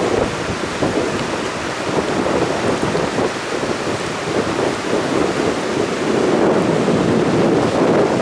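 Hurricane-force wind and heavy rain over storm-surge floodwater rushing past, the wind buffeting the microphone in gusts that swell and ease in an unbroken rush of noise.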